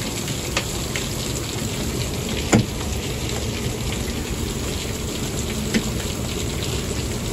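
Heavy downpour pounding outside, a steady dense hiss of rain with a few sharp taps; the loudest tap comes about two and a half seconds in.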